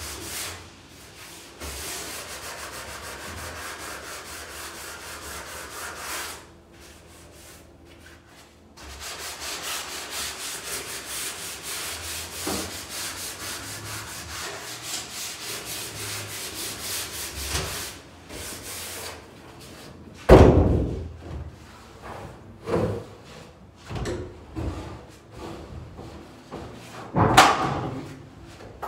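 Sanding on painted closet door trim in two long spells of fast, even rubbing strokes. These are followed by several knocks and two loud bangs as the wooden closet doors are opened and the ladder is shifted.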